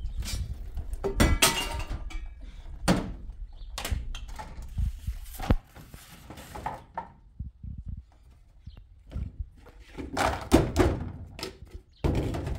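Scattered knocks, thunks and clatters of dishes and plastic containers being handled at a kitchen sink, sparser in the middle and busier again near the end.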